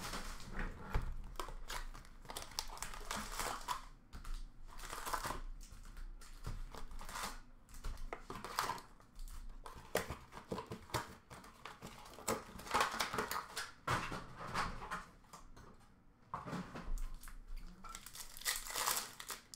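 Foil-wrapped hockey card packs being torn open and their wrappers crinkled by hand, in irregular bursts of rustling.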